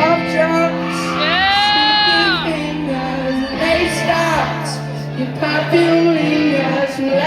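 Live band playing, with sustained guitar and bass notes under a high sung vocal line that swoops up and falls back about a second in, followed by shorter sung notes.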